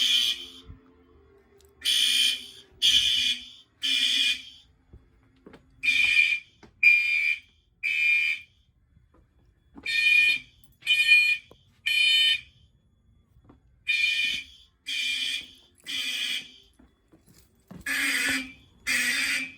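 Several fire alarm horns, among them a System Sensor SpectrAlert Advanced and Gentex and Faraday units, sounding together in the temporal-three evacuation pattern: three short blasts, a pause, then three more, repeating about every four seconds.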